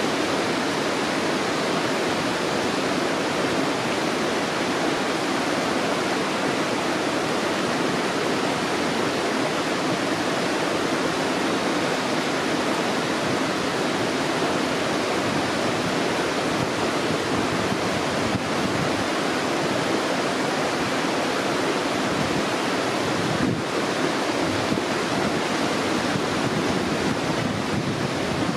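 Shallow stream water rushing steadily over stones.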